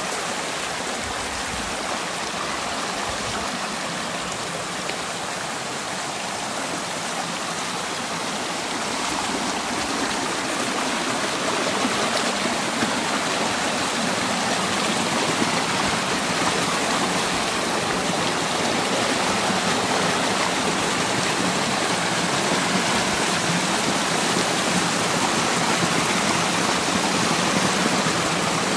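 Creek water rushing and splashing down a narrow channel between granite boulders, a steady rush that grows a little louder about a third of the way in.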